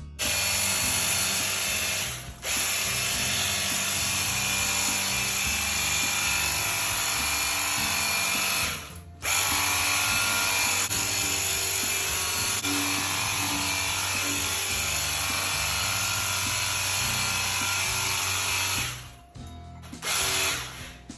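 Cordless pressure washer running and spraying: a steady motor-and-pump drone under a loud hiss of water. It stops briefly about two seconds in and again about nine seconds in, then stops near the end.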